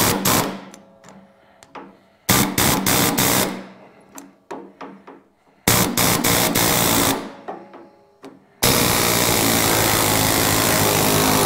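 Air hammer driving a Steck Skin Zipper hemming head against a steel door skin flange in four bursts. The first three last about a second each, and the last runs steadily for about three seconds near the end. It is folding the new skin's flange over to a 45-degree angle.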